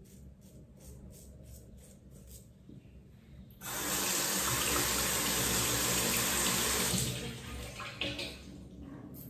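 Sink tap running for about three seconds, starting and stopping sharply, as the safety razor is rinsed under it, with a short second burst of water about a second later. Before it, faint short scratchy strokes repeat about four times a second.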